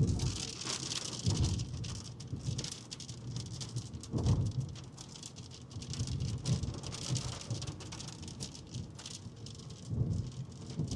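Inside a moving storm-chase vehicle: a steady hiss of road and wind noise with fine pattering on the body. A few low thuds come about a second in, around four seconds in and near the end.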